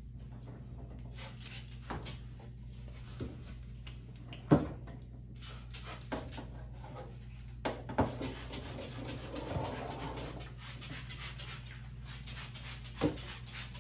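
Trigger spray bottle spritzing repeatedly into a washer tub in short hissing sprays, with hand rubbing and a few sharp knocks. The loudest knock comes about four and a half seconds in.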